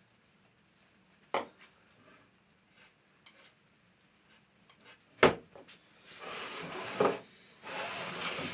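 Workshop handling sounds: a few sharp knocks of wood and tools being set down, the loudest about five seconds in, then two rubbing strokes of about a second each, as in hand-sanding a poplar cabinet door.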